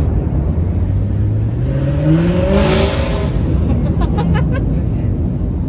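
A car accelerating past, its engine note rising for about two seconds and loudest as it goes by, over a steady low rumble.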